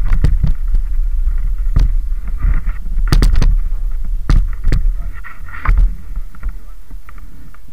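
Downhill mountain bike ridden over a rough dirt and gravel trail, picked up by a helmet-mounted camera: heavy low rumble of wind and rolling tyres, with repeated knocks and rattles from the bike over bumps. The knocks thin out near the end.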